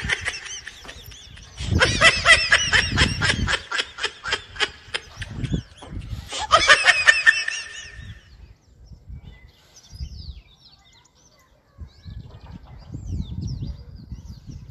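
Laughter in quick, even pulses: one brief burst at the start, a longer one of about two seconds soon after, and another about six seconds in. Then only faint scattered sounds.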